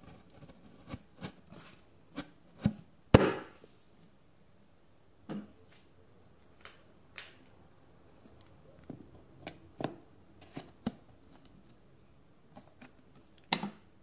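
Scattered knocks and taps of Ikea Billy bookcase panels being handled and pushed together at a cam-lock joint. The loudest is a sharp knock about three seconds in, with another near the end.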